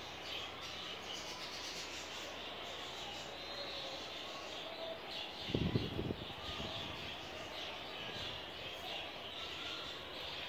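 Steady background chatter of small birds chirping, with a brief cluster of low thumps a little over halfway through.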